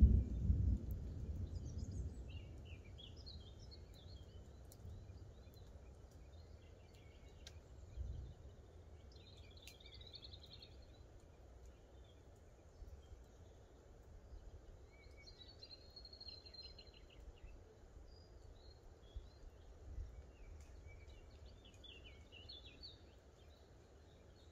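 Woodland songbirds chirping and trilling now and then over a faint low outdoor rumble, with a louder low rumble in the first second or two.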